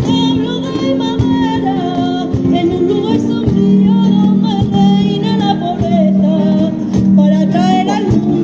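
A group of women's voices singing a Spanish Christmas song to two strummed acoustic guitars, with hand clapping keeping a steady beat about twice a second.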